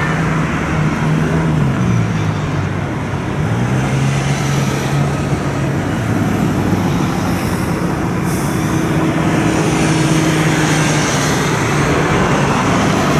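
Steady city road traffic: vehicle engines running and passing, with a low engine drone that dips and rises in pitch during the first few seconds.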